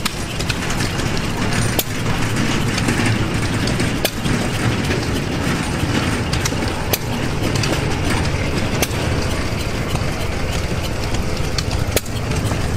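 Antique hit-and-miss gas engines running, a steady mechanical clatter broken by sharp firing pops every two or three seconds.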